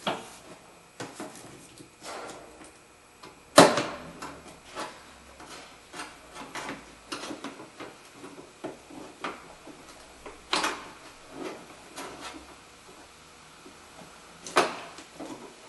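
Plastic clicks and knocks from a gloved hand working the push-pin clips and plastic cowl panel below the windshield of a 2008 Toyota Highlander. Light irregular clicks, with three sharper knocks about four, ten and a half and fourteen and a half seconds in.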